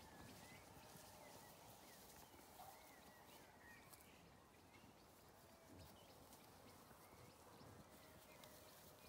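Near silence: faint outdoor ambience with a few short, faint high chirps.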